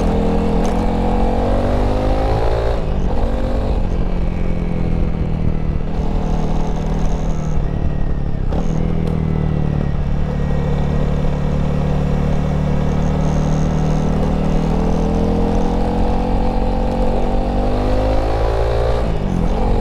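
Honda CRF300L's single-cylinder four-stroke engine being ridden, its pitch rising as it pulls and dropping briefly at gear changes about 3 s in, about 9 s in and near the end.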